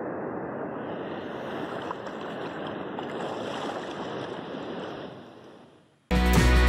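Shallow surf washing up a flat sandy beach close to the microphone, a steady rush of water that fades out about five seconds in. Loud music starts abruptly near the end.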